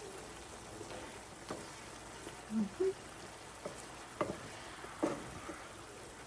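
Chicken pieces frying gently in a pan, a steady soft sizzle, with a few light clicks and two brief low hums a little past the middle.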